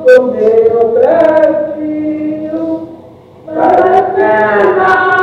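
Singing: long, drawn-out vocal notes, sliding between pitches at first and then held, with a brief drop about three seconds in before another long sustained note.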